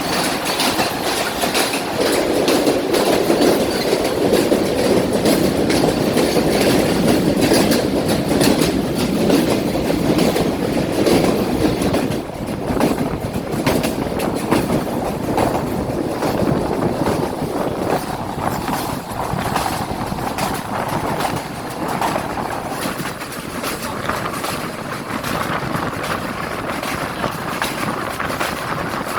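Train running on the rails: a steady rumble with wheel clatter over the track. The sound eases and shifts a little higher about twelve seconds in.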